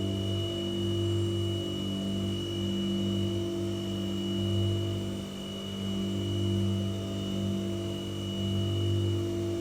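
White noise sound machine running: a steady low hum with a faint thin high whine over soft hiss, its loudness swelling and easing slightly.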